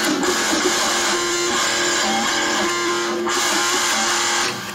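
Noise music: a dense, steady wall of distorted held tones and hiss that breaks off sharply near the end.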